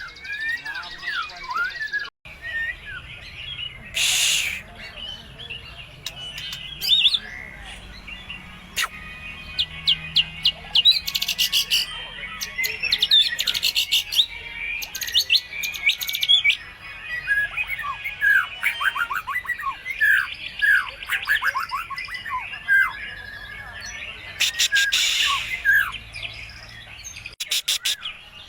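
White-rumped shama (murai batu) singing a fast, varied song of quick whistles, trills and chirps, packed with calls copied from other birds, broken by bursts of harsh, scratchy notes.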